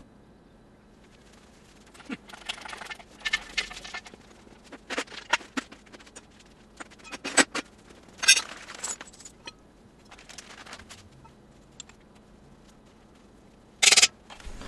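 Scattered light metal clinks, knocks and scrapes of hand work on the engine install. A short, louder clatter comes near the end.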